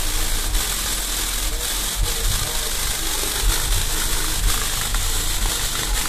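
An 8-inch JBL GTO804 subwoofer in a tapped-horn enclosure playing a steady low bass tone. A plastic carrier bag over the horn mouth flaps and rustles continuously in the air it pushes out.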